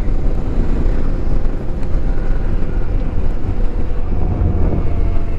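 Wind rushing over a helmet-mounted action camera's microphone on a moving Royal Enfield Interceptor 650 motorcycle, with the engine and road noise under it. A faint steady whine comes in near the end.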